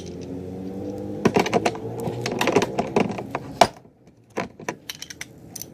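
Irregular light metal clicks and clatter of hand tools being handled, over a steady low hum that cuts off suddenly about two-thirds of the way through.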